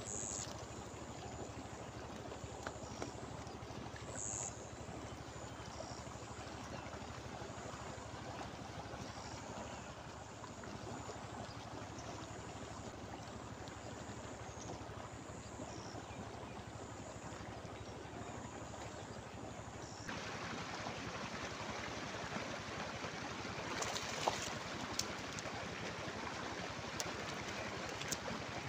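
River water rushing over a shallow rapid: a steady wash of noise that gets louder about two-thirds of the way through, with a few faint clicks near the end.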